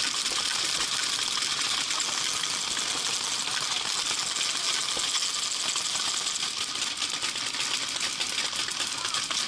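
Many paintball markers firing in a rapid, dense clatter of pops and clicks, thicker in the second half.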